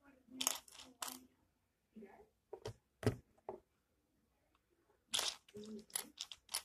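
Plastic Lego bricks clicking and rattling as pieces are handled and pressed onto a build. The sharp clicks are scattered, with a quick run of them near the end.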